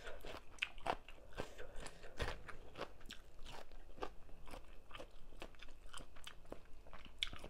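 A person chewing a mouthful of tam sua (spicy papaya salad) with fresh vegetables, close to the microphone: irregular crisp crunches, a few a second.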